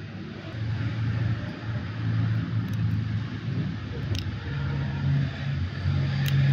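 An engine running steadily with a low hum, its pitch stepping up a little about halfway through, and a couple of light clicks.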